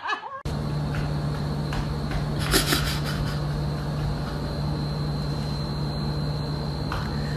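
A steady machine hum with a thin high whine over it, unchanging throughout, and a short rustle about two and a half seconds in.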